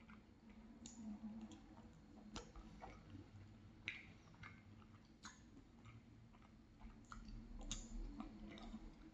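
Faint sounds of a person eating ice cream with crumbled almond tart: quiet chewing with scattered small clicks and smacks.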